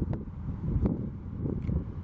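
TasRail diesel-electric locomotive running slowly at the head of a train: a deep, uneven rumble, with two sharp clicks about a second apart, partly mixed with wind buffeting the microphone.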